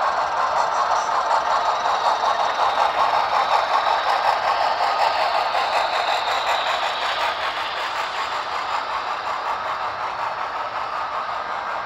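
Model freight train rolling past on the layout's track: a steady rattle and clatter of the cars' wheels and couplers, loudest around four seconds in and easing off a little in the last few seconds as the cars move away.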